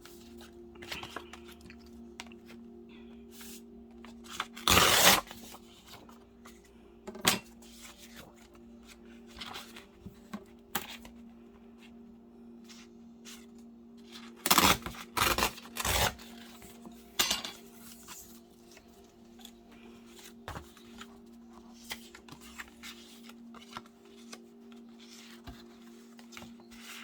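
Paper-crafting sounds at a table: paper and card being handled, rustled and torn, with scattered small clicks and taps of tools and pieces set down. The loudest rustling or tearing comes about five seconds in and in a cluster around fifteen to seventeen seconds in, over a steady low hum.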